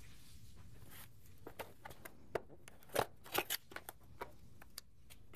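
Cardboard product box being opened by hand: a string of short clicks and rustles as the flaps and tab are pulled, starting about a second and a half in and loudest about three seconds in.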